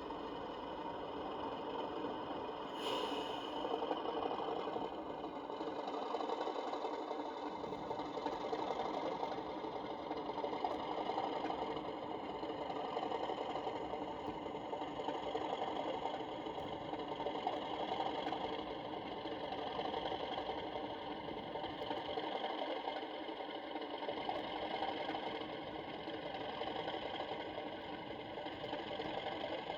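Sound-fitted OO gauge Accurascale Class 37 model locomotive running, its decoder playing the steady drone of the English Electric diesel engine through the model's small speaker, with a brief high-pitched sound about three seconds in.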